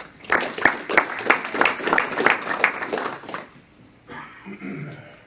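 Audience applause, a crowd of hands clapping for about three seconds and then dying away.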